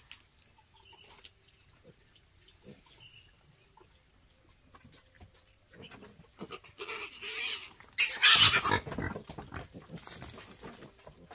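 Wild boar piglet squealing loudly in shrill bursts as it is grabbed and handled, loudest about eight seconds in, after a few quiet seconds.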